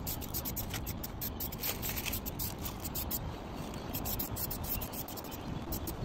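Aerosol spray paint can hissing in many short bursts as paint is sprayed onto tree bark, with a low rumble underneath.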